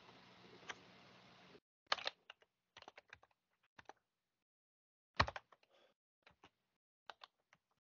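Typing on a computer keyboard: irregular runs of key clicks, with one louder knock about five seconds in. For the first second and a half there is only a faint steady hiss with a low hum.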